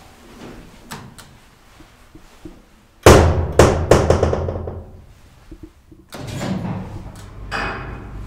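Old DEVE hydraulic freight elevator: a few light clicks, then about three seconds in the car doors shut with a loud clanking bang that rings and fades over a couple of seconds. About six seconds in a steady low rumble starts as the hydraulic drive sets the car moving.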